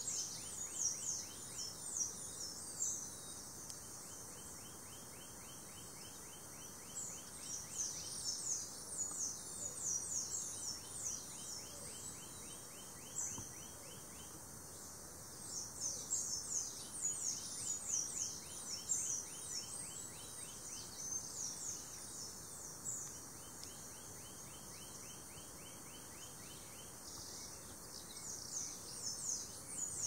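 Rainforest ambience: a steady, evenly pulsing insect trill, with four bouts of rapid, high, falling chirps every few seconds.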